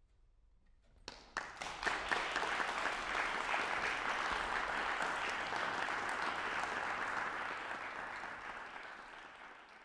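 Audience applauding: the clapping starts about a second in, quickly swells, holds steady, then fades away near the end.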